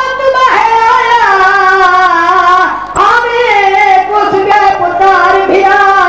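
A boy's voice singing a chanted recitation into a microphone, in long drawn-out notes that waver and bend in pitch. He breaks off briefly for breath about three seconds in.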